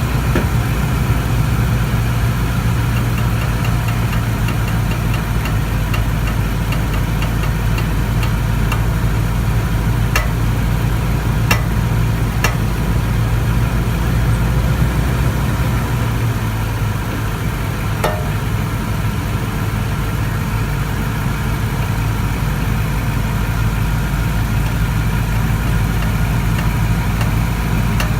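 2014 Toyota Tundra's engine running steadily, with a few sharp pops on top of the hum: three about ten to thirteen seconds in and one more about eighteen seconds in. The pops are the driver's-side popping noise the truck is being checked for.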